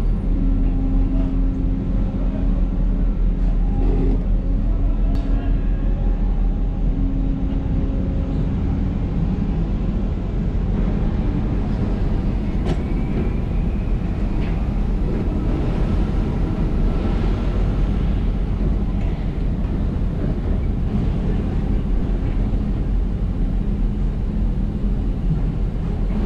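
Heavy port machinery's diesel engine running steadily with a deep hum, its pitch shifting slightly about ten seconds in.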